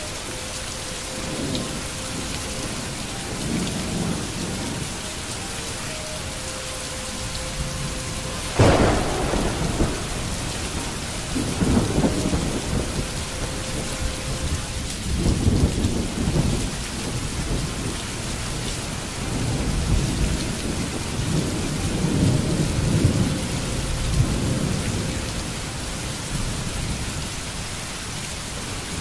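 Rain falling steadily, with rolls of thunder: a sharp crack about nine seconds in, then several low rumbles that swell and fade.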